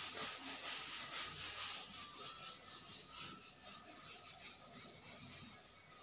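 Hands scooping and pressing damp, coarse ground rice flour over a coconut-and-jaggery filling in a small bowl, a soft, irregular gritty rustling of rubbing strokes.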